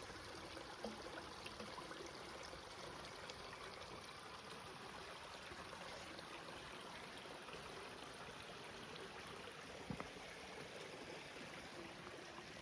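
Faint, steady rush of a small mountain stream or spring, with one light knock about ten seconds in.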